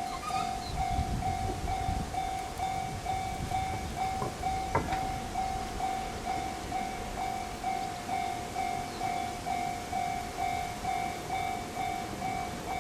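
Japanese level-crossing warning bell ringing steadily, an evenly repeating electronic ding a little under twice a second, while the crossing is closed. A low rumble under it in the first couple of seconds and one sharp click about five seconds in.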